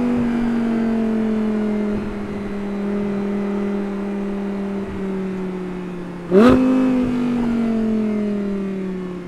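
Audi R8's stock-exhaust 5.2-litre V10 off the throttle with its note slowly falling as the car slows. About six seconds in there is one sharp, loud throttle blip on a downshift, then the revs fall again and drop away near the end.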